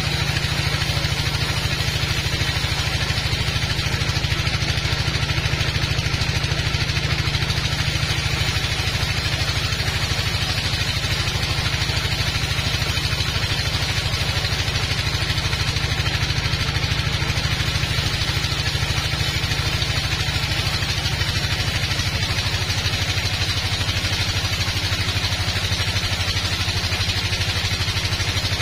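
Band sawmill running with a steady, engine-like drone while a teak log is sawn. Its low hum shifts slightly in pitch a couple of times.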